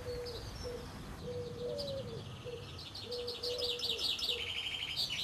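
Outdoor birdsong: a small songbird singing fast runs of high chirps that end in a rapid trill, over a low, broken cooing note.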